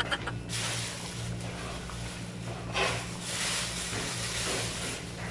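Steady kitchen stove noise around a pot of thick chicken caldereta sauce simmering on the burner: an even hiss with a low hum underneath, and a brief louder rush about three seconds in.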